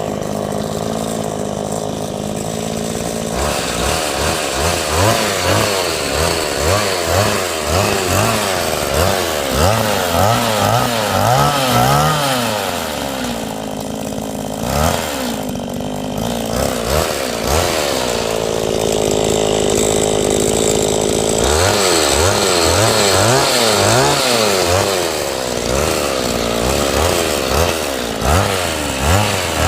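Petrol-engined remote-control car's small two-stroke engine running, held steady at first and then revved up and down over and over, about once a second.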